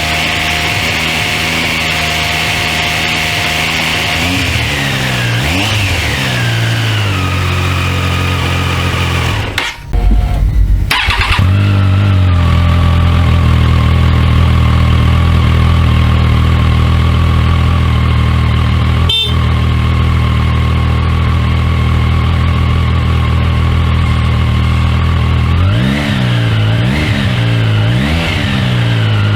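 2024 Triumph Daytona 660's 660 cc inline-triple engine idling, with two short throttle blips about five seconds in and three quick blips near the end. About ten seconds in, the sound briefly drops out and then comes back as a loud low thump.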